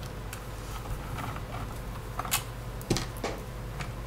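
Small irregular clicks and ticks of a screwdriver backing out the metal mounting screws of a hard drive in a NAS drive bay, the loudest a little before and after three seconds in, over a faint steady hum.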